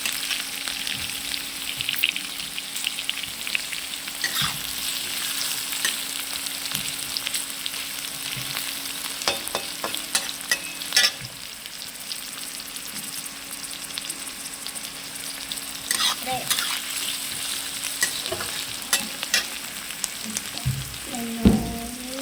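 Vegetables sizzling steadily in hot oil in a pan for mixed vegetable sabzi, with a spatula clicking and scraping against the pan now and then as they are stirred. A short pitched sound comes near the end.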